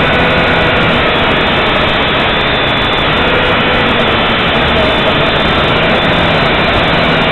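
JJRC H8 mini quadcopter's small electric motors and propellers whining steadily, heard close up through the drone's own onboard camera. The pitch drifts slightly down and back up as the throttle changes.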